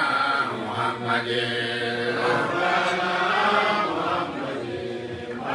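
A man chanting Islamic devotional verses into a microphone in a drawn-out melodic voice, with long held notes that slide in pitch.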